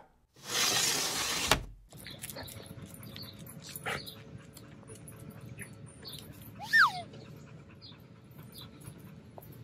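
Quiet outdoor ambience: a loud rush of noise for about the first second and a half, then a low steady background with a few short chirps and one short falling whine about seven seconds in.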